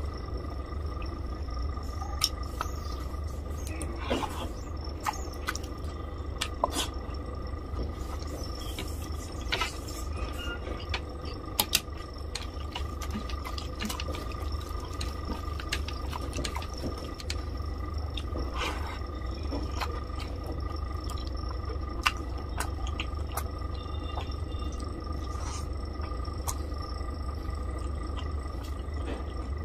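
A hand squishing and mixing rice into thin rohu fish curry gravy on a plate, making wet squelching and dripping sounds with scattered small clicks. A steady low hum runs underneath.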